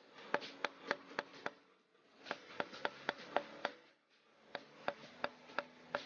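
Small hammer tapping lightly on a green bamboo tube in three short runs of quick taps, about four a second.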